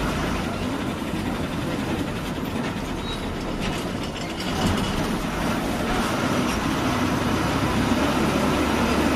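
Bus running along a highway: steady engine and road noise with light rattling, and a brief thump about four and a half seconds in.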